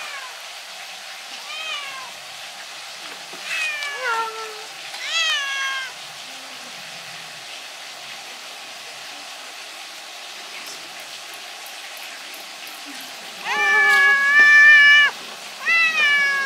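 Orange-and-white stray cat meowing for treats while a churu is brought out. Three short falling meows in the first six seconds, then a long, louder drawn-out meow about thirteen and a half seconds in, and another short one just after.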